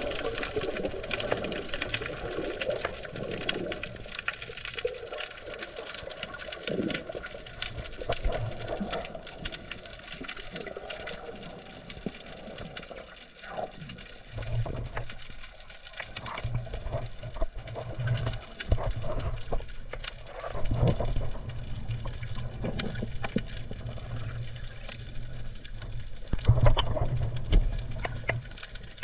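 Underwater sound picked up by a GoPro in its housing: muffled water movement with many small crackling clicks. About halfway through, a low steady hum sets in and continues.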